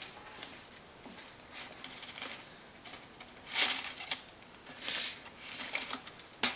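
Zip ties being rummaged for and handled: scattered small clicks and rustles, with two louder rustles about three and a half and five seconds in.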